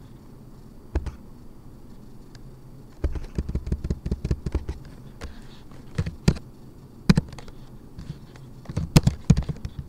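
Typing on a computer keyboard: a single keystroke about a second in, a quick run of keystrokes from about three seconds in, scattered single keys, then another quick run near the end.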